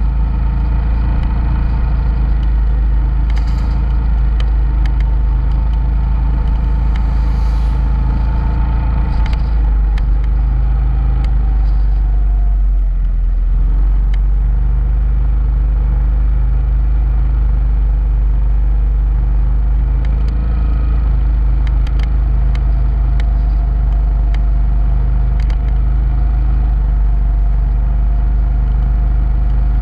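Motorcycle engine running at a steady road speed, under heavy wind rumble on the microphone. About twelve seconds in the engine note drops briefly, then steadies again.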